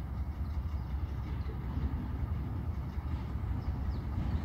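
TU2 narrow-gauge diesel locomotive approaching at a distance, its engine a steady low rumble.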